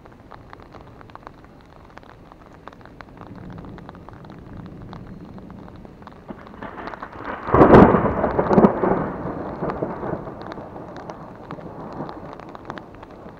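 Thunder: a low rumble builds, then about halfway through a sharp, loud crack breaks and rolls on for a few seconds before fading. Raindrops tick steadily on an umbrella throughout.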